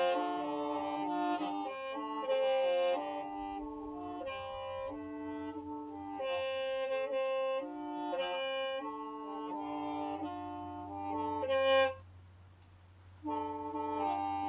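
Qeej, the Hmong bamboo free-reed mouth organ, playing: several held reed tones sound together and shift to new notes every half second or so. It breaks off about twelve seconds in and starts again just over a second later.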